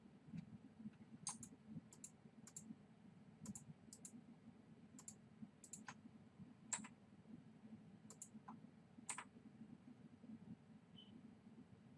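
Faint, scattered clicks of a computer mouse button, about a dozen at irregular intervals, some in quick pairs, over a steady low hum.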